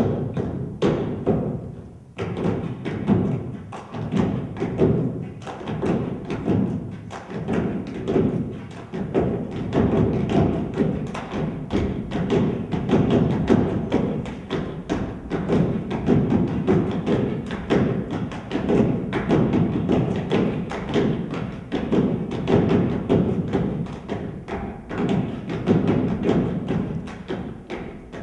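Rhythmic ensemble percussion: long wooden poles knocking and thumping on a stage floor, together with body percussion such as stomps and slaps, many quick hits layered in a steady dense pattern.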